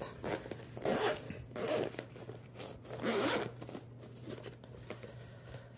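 Zipper on the Hot Logic Mini portable oven's fabric case being pulled open around the lid in three rasping strokes, the last and longest about three seconds in.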